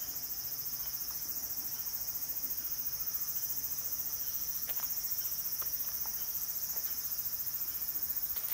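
A steady, high-pitched chorus of insects, pulsing fast and evenly, with a few faint ticks about halfway through.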